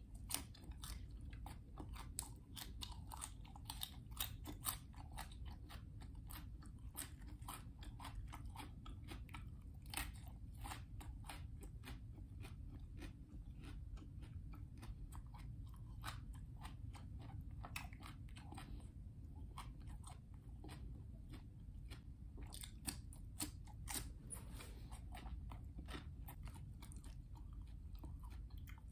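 Close-up crunchy chewing and biting of raw vegetables and greens dipped in papaya-salad dressing, a dense run of crisp crunches with a few louder bites.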